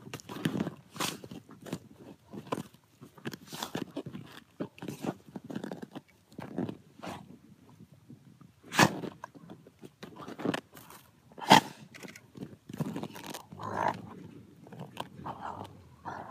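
An Arctic wolf chewing and biting a fabric toy football, with irregular crunching bites. Two sharper, louder crunches come in the middle.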